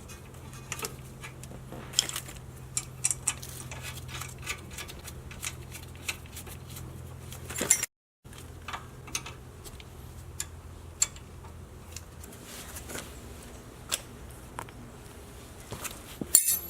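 Scattered metallic clicks and clinks of brake pads, pad clips and caliper hardware being handled and fitted, over a steady low hum. The sound cuts out for a moment about eight seconds in.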